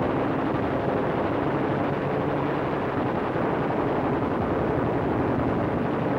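A warplane's engine at full power as it dives on a strafing run, a dense steady noise with the fast rattle of machine-gun fire through it.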